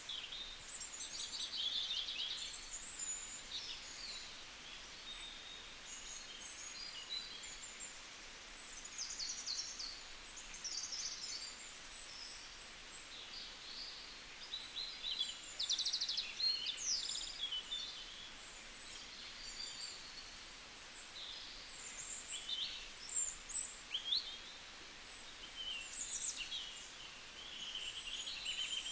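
Several small birds chirping and trilling at once in a continuous chorus of short, high calls and quick sweeping notes, over a faint steady hiss.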